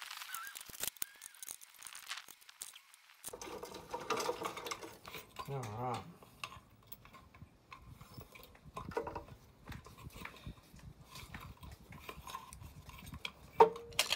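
Small metal clinks, clicks and rattles of tools and parts as the rear wheel and brake assembly of a Razor electric scooter are taken apart and the wheel is pulled out. One sharper metallic clink with a brief ring comes just before the end.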